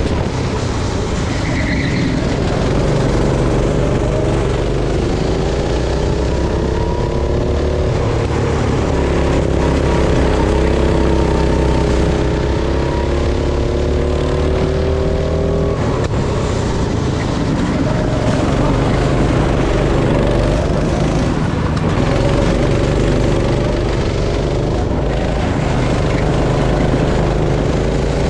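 Go-kart engine running hard, its pitch climbing and falling back several times as the throttle is opened and lifted, over a steady low rumble.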